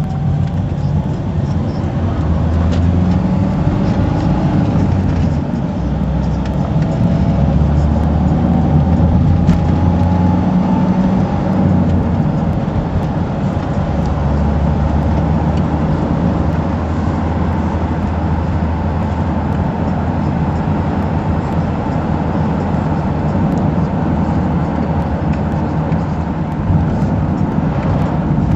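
Car engine and road noise heard from inside the cabin while driving: a steady low drone whose engine note rises and falls during the first dozen seconds, then runs evenly.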